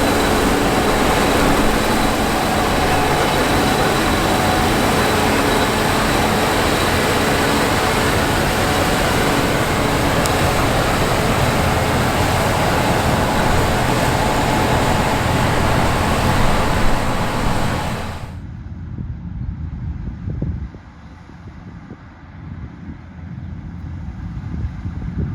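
A Gleaner S97 combine running under load while harvesting wheat: a steady, dense machine drone with a faint high whine over it. About 18 seconds in, the sound cuts abruptly to a much quieter low rumble.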